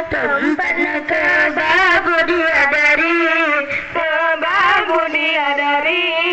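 Boys' voices chanting a maulid zikir in unison. The melody is sung without a break, with wavering, ornamented pitch.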